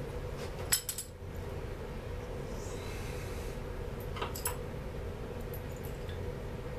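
Small metal parts and hand tools clinking against each other and the workbench, two quick clinks a little under a second in and two more just after four seconds, over a steady low hum.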